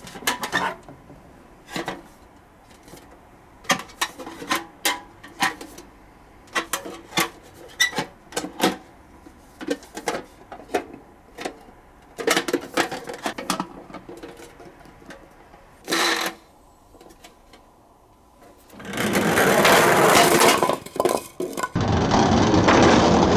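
Die-cast toy cars clicking and clacking against each other and a hard surface, a sharp knock every second or so. Near the end comes a loud continuous rattle of the toy cars.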